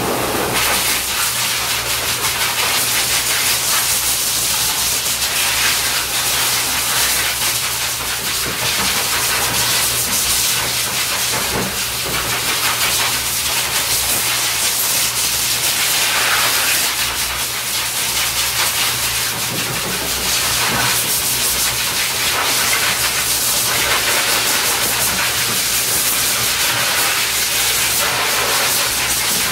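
Hose-type pet blow dryer blasting a loud, steady hiss of air through its nozzle onto a puppy's coat, the rush shifting a little as the nozzle is moved over the dog, with a faint low hum from the dryer's motor underneath.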